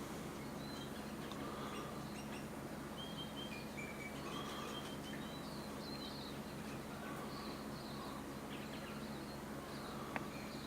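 Small birds chirping and calling on and off over a steady low hum, with a single sharp click near the end.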